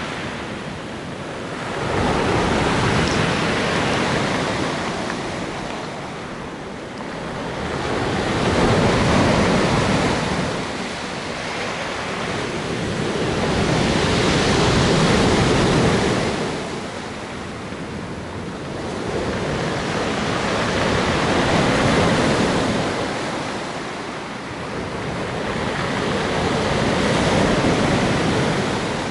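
Sea surf washing onto the shore, the noise swelling and fading as each wave breaks, about every six seconds.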